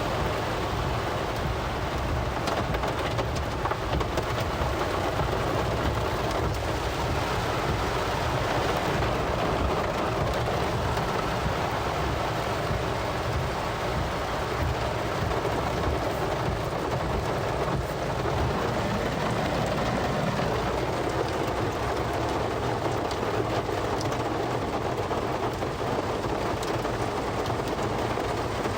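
Heavy rain falling on a car's roof and windshield, heard from inside the cabin: a steady, dense wash of rain with many scattered sharper drop hits.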